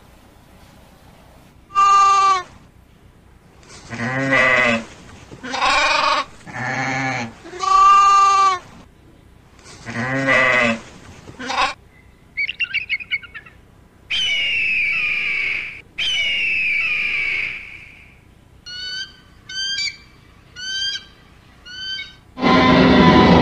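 A run of animal calls. First come about six wavering calls rich in overtones. Then an eagle gives two long high screeches and a string of short sharp chirps. A loud roar starts near the end.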